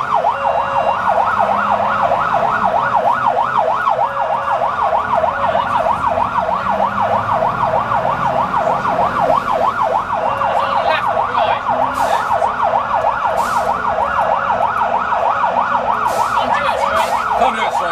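Fire engine siren on a fast yelp, its pitch rising and falling several times a second without a break. It is heard from inside the appliance's cab, with the engine running underneath.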